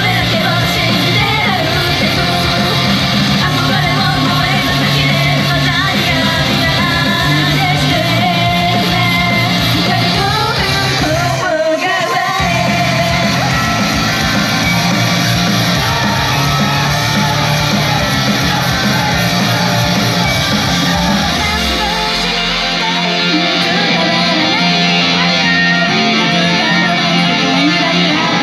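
Live rock-styled idol pop song played loud in a hall, with singing and shouts over electric guitar. The music breaks off for about half a second near the middle, and for the last few seconds the bass drops away, leaving mostly guitar.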